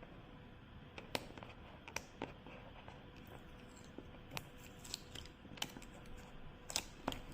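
Faint, scattered clicks and taps of fingers picking and prying at a cardboard box sealed with a tamper-evident label.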